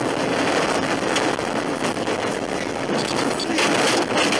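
A car running off the road through brush: a continuous rushing noise with many sharp slaps and scrapes as branches and foliage strike the windshield, thickest near the end.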